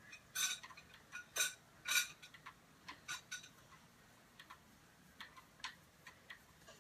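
Irregular soft ticks and taps of a makeup brush and fingertips dabbing and buffing product onto the face, a few louder clicks in the first two seconds, then fainter ones.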